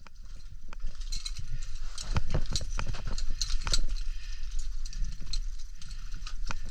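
Irregular knocks and clicks, several a second, over a low steady rumble.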